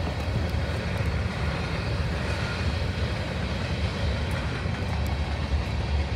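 Freight train running past, a steady low rumble.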